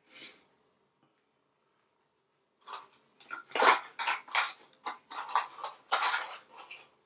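Packaging being handled during an unboxing: irregular rustling and crinkling. There is one short rustle at the start, then busier handling from about three seconds in.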